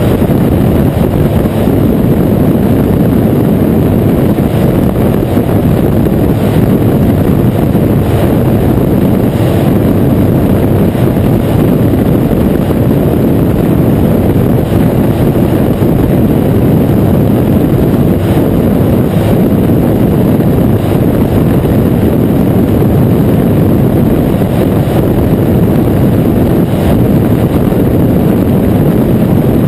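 Flex-wing microlight trike in cruising flight: a loud, steady roar of airflow buffeting the open microphone mixed with the engine's drone, without a break.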